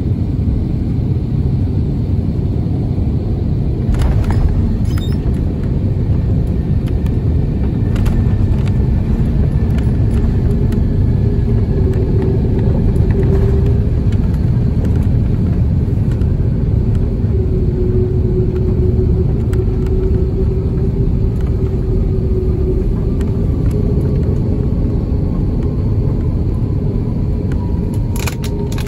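Airbus A330-300 landing and rolling out, heard from inside the cabin: a loud steady rumble of wheels and airframe on the runway, with a sharp knock about four seconds in as it touches down. A faint whine falls slowly in pitch through the second half.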